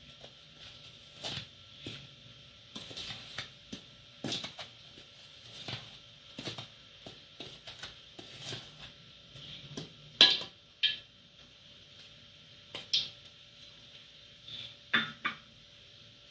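Irregular clinks and knocks of a metal mixing bowl and kitchen utensils while flour is mixed by hand, with the loudest knocks about ten seconds in and again about fifteen seconds in.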